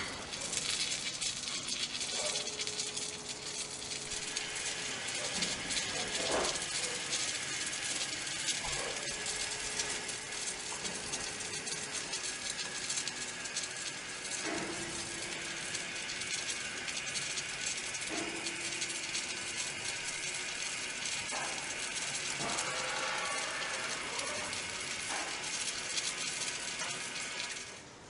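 Machinery noise: a steady hiss with continuous metallic rattling and clinking, a few short steady tones over it, cutting off just before the end.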